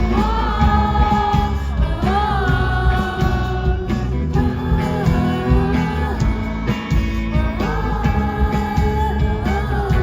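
Indie pop song playing, with guitar, a steady bass-and-drum pulse, and a melody line held in long notes, phrased about every two seconds.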